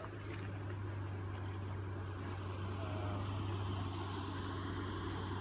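Steady low engine hum, like an idling vehicle, with one faint short call or squeak about three seconds in.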